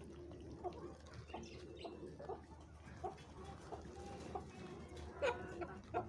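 Chickens clucking softly among a feeding flock of poultry, with scattered short calls and one louder call about five seconds in.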